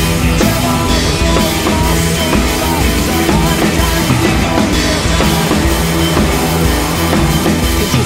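Background rock music with a steady drum beat.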